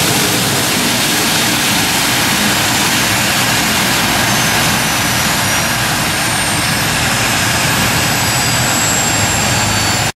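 Gas turbine engines of a modified pulling tractor running steadily, a loud even roar with a faint high whine. It cuts off suddenly near the end.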